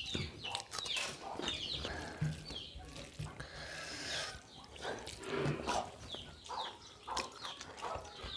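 Close-up eating sounds: wet chewing and lip-smacking from two people eating fish khichdi by hand from steel plates. Short high chirps repeat about twice a second behind it.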